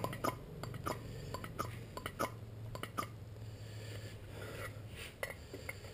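Hand-operated vacuum pump being squeezed stroke after stroke, a short click with each squeeze, about one a second and thinning out in the second half. It is drawing vacuum on a two-stroke engine's crankcase to test the bottom-end seals for leaks.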